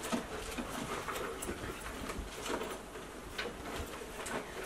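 Faint rustling and light clicks of cardboard and paper being handled in an opened subscription box.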